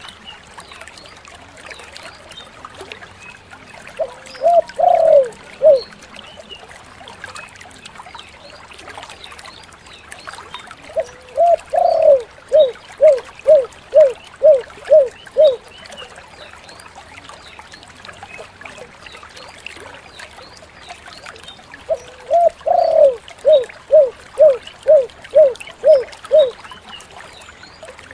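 Spotted dove (tekukur) cooing in three phrases. Each phrase opens with a longer note and runs into a quick series of short, evenly spaced coos. The first phrase is brief, and the later two run to about ten notes each, over a faint steady background hiss.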